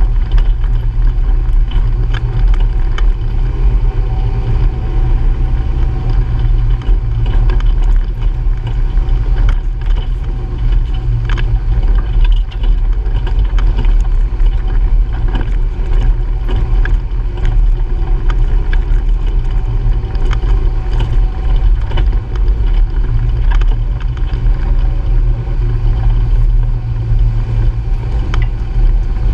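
Honda Pioneer 700-4 side-by-side's single-cylinder engine running steadily under way on a dirt trail, with a heavy low drone and frequent small knocks and rattles from the machine bouncing over the rough ground.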